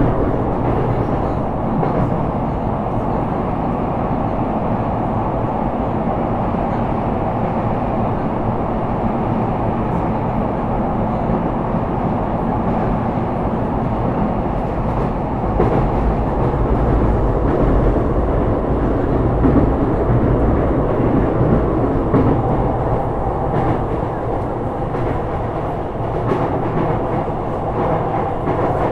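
Sotetsu 12000 series electric train running at steady speed, heard from inside the car: a continuous rumble of wheels on rail with a few scattered clicks.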